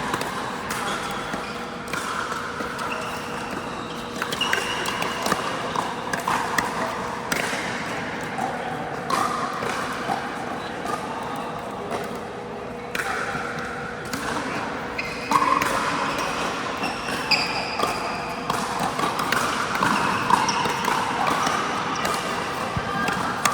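Pickleball play: repeated sharp pops of paddles striking the plastic ball and the ball bouncing on the court, irregularly spaced, with voices in the background.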